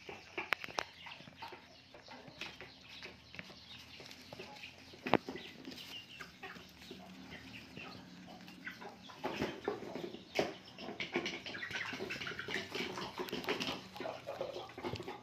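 Puppies eating rice and fish from styrofoam trays: wet chewing and smacking with many small clicks and crackles, busier in the second half, and a few sharp knocks as a tray is nosed along.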